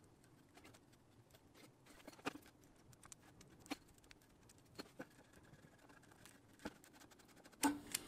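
Faint, scattered light clicks and taps of a steel rule and mechanical pencil being handled against a walnut board, with a louder pair of knocks near the end.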